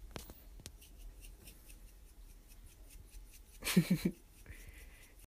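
Faint scattered light clicks, with a short burst of a man's voice about four seconds in.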